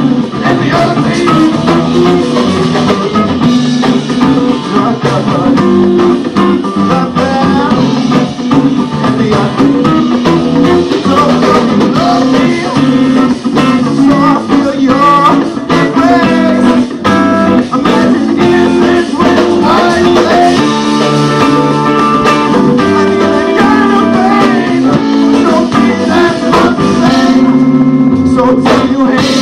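A live band playing a funk number: amplified electric guitars over a drum kit and congas.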